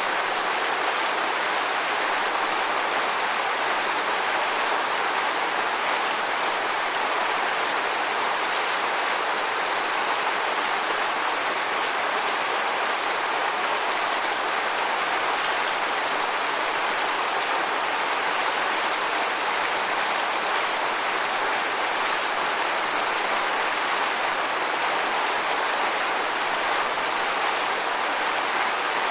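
Waterfall: a steady, unbroken rush of falling water, with most of its weight in the upper range and little low rumble.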